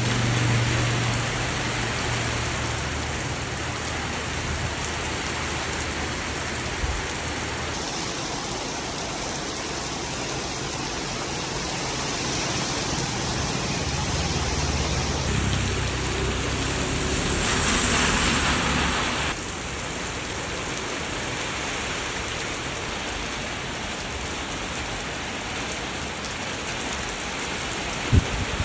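Heavy tropical rain pouring steadily, a dense hiss of rain on surfaces. It swells louder for a few seconds around the middle, then drops back suddenly, and there is one short thump near the end.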